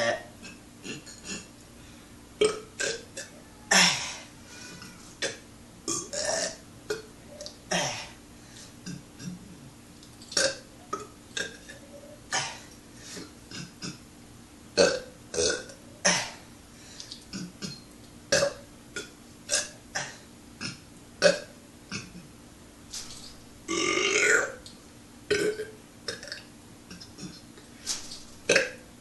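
A man burping over and over: a long run of short belches, about one or two a second, with one longer drawn-out belch about two-thirds of the way through. A faint steady hum runs underneath.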